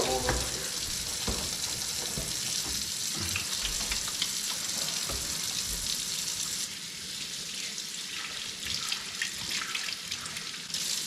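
Kitchen faucet running into the sink from newly plumbed PEX lines, spitting and gurgling in irregular spurts as trapped air purges from the pipes. About two-thirds of the way through the flow turns a little quieter and smoother.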